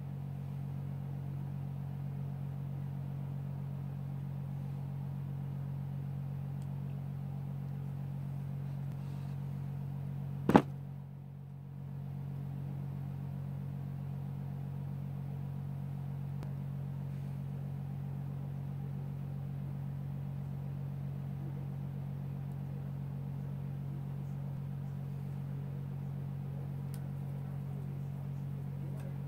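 Steady low hum, with a single sharp click about ten and a half seconds in; any handling sounds from the foam are faint beneath it.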